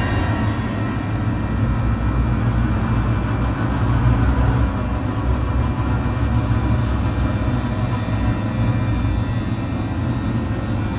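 Dark ambient music: a steady low rumbling drone with sustained tones held above it.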